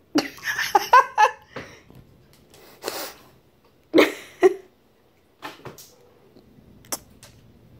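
Shih tzu barking in short, sharp yaps: a quick cluster in the first second or so, then two loud barks about four seconds in. It is demand barking, the dog wanting fruit.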